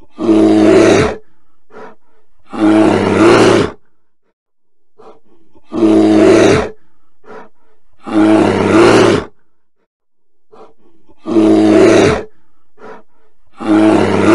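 Brown bear roaring six times, each roar about a second long and loud. The roars come in pairs a little over two seconds apart, with slightly longer gaps between the pairs.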